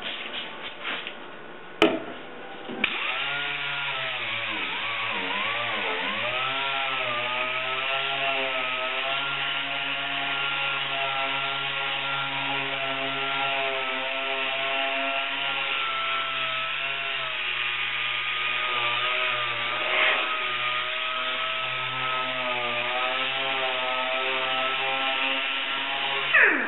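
Pneumatic dual-action sander with 800-grit paper starting up about three seconds in. Its whine dips and wavers as it is pressed onto the gel coat of a fiberglass mold, then it runs steadily with a hiss of air and sanding. It winds down with a falling whine just before the end; a couple of knocks come before it starts.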